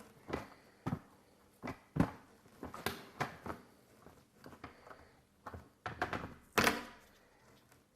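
Irregular clicks and taps from a 1/24-scale diecast model supercar being handled, its small metal and plastic parts clicking as they are worked. About a dozen separate clicks, the loudest about two-thirds of the way through.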